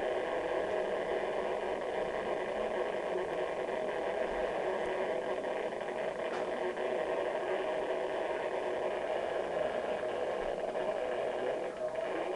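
Steady rushing noise with no voices, played back through a television's speaker.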